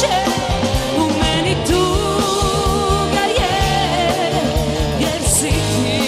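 A woman singing a pop-folk song live, backed by a band of keyboards, bass guitar and drums.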